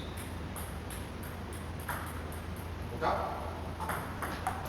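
Table tennis balls clicking sharply off paddles and the table in a rally, a run of short ticks a fraction of a second apart, over a steady low hum.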